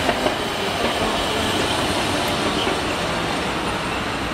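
Hiroshima Electric Railway streetcar No. 1905 running along street track, with a steady rumble and a few sharp clacks in the first second. City road traffic runs underneath.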